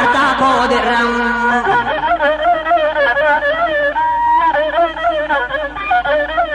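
Masenqo, the Ethiopian single-string bowed fiddle, playing a wavering instrumental melody with vibrato, taking over as a held sung note ends about a second and a half in.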